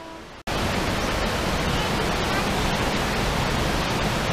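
Loud, steady rush of fast-flowing mountain water, cutting in suddenly about half a second in.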